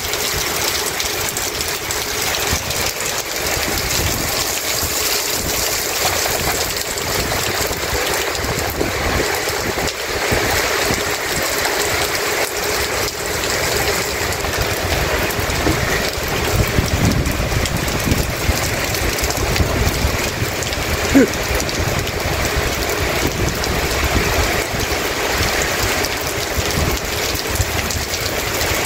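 Heavy rain pouring steadily onto a wet paved yard, a continuous hiss of falling and splashing water. From about halfway in, a low rumble of distant thunder joins it, and a single short sharp sound stands out about two-thirds of the way through.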